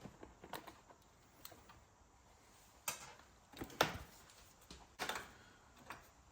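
A handful of separate sharp clicks and knocks, the loudest about three and four seconds in, of tools and small parts being handled while working on a motorcycle's rear brake reservoir cover.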